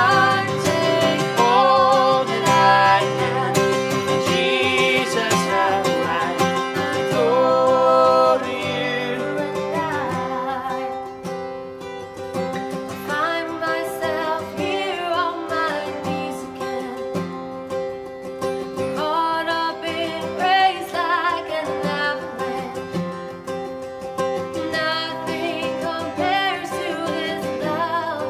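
A woman singing a slow song accompanied by an acoustic guitar. The music is fuller for the first several seconds, then drops softer about ten seconds in.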